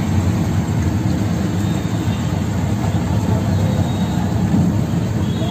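Auto-rickshaw engine running steadily with a low rumble, heard from inside the open passenger cabin as it rides through street traffic.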